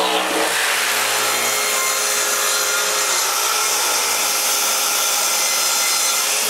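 Festool plunge-cut track saw on its guide rail cutting through a wooden stair stringer, the blade running steadily under load.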